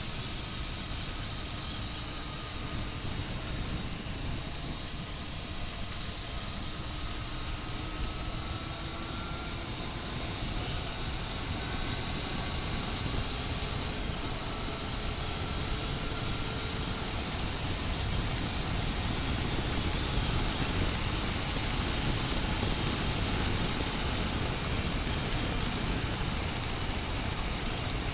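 Motorcycle running on the road with heavy wind noise, its engine note faint under the rush and rising slowly in pitch in long glides as it picks up speed.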